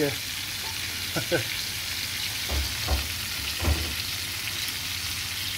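Flour-dusted pieces of pollock shallow-frying in oil in a frying pan, a steady sizzle, with a few soft knocks around the middle.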